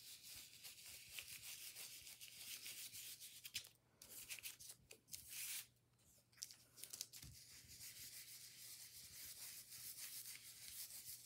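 Faint scratchy scrubbing of a stiff round stencil brush working white paint through a plastic stencil onto paper. It stops briefly twice in the first half, and there is a light rustle as the plastic stencil is lifted and laid back down.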